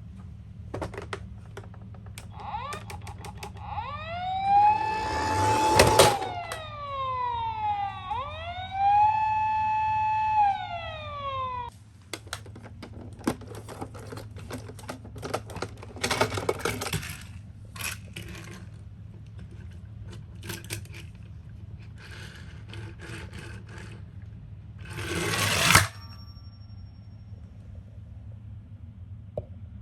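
A toy ambulance's electronic siren wails up, holds and falls twice, amid the clicks and rattles of small plastic and die-cast toy cars being handled and run on a slope. Later come further clattering and two louder rushing noises of the cars moving.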